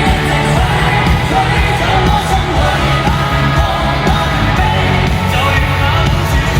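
Loud live pop-rock music: a band with a singer, the bass and drums steady throughout.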